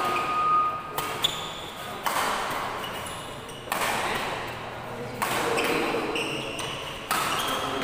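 Badminton rackets striking a shuttlecock in a doubles rally: a run of sharp hits every one and a half to two seconds, each echoing in the large hall, with short high squeaks of shoes on the court between them.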